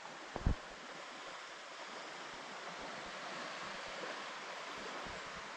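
Steady wash of surf and wind along a beach, with a brief low thump about half a second in.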